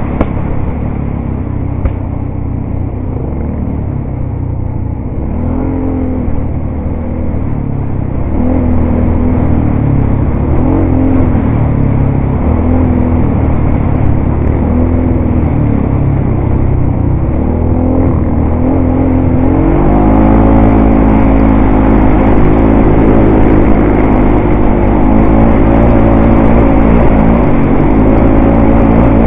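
ATV engine running while under way, its pitch rising and dipping every couple of seconds with the throttle. About two-thirds of the way in it climbs to a louder, higher and steadier note as the quad speeds up.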